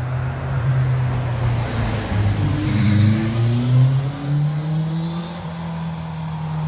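A motor vehicle drives past on the road with a low, steady engine note. About two and a half seconds in, the pitch rises as it accelerates, and it is loudest around three to four seconds in.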